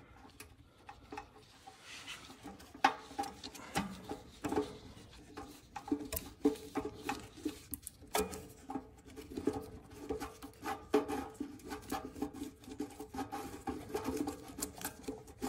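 A new fuel shut-off valve being turned by a gloved hand up into the threaded fitting under a snowblower's gas tank: small irregular clicks of metal and plastic parts, with rubbing and short squeaks, getting busier about halfway through.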